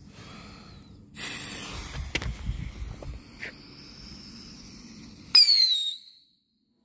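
A lit firework fuse sizzles with a hiss for a couple of seconds. About five seconds in, a whistling firework goes off with a loud, shrill whistle that glides slightly down in pitch, and the sound cuts off abruptly after about a second.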